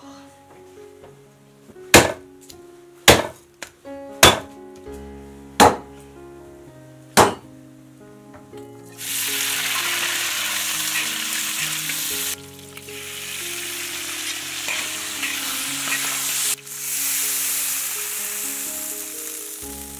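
Chunks of meat sizzling loudly in a hot iron wok as they are stir-fried with a metal spatula, starting about halfway, with a short break and a fresh burst of sizzling near the end as water goes into the wok. Before that, five sharp knocks over background music.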